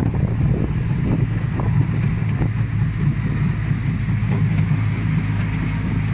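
Miniature railway train running along the track, heard from on board the carriage: a steady low rumble of the moving train.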